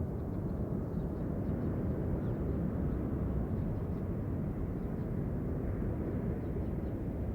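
Steady low roar of hot air balloons being launched in the distance, from the balloons' propane burners and inflation fans.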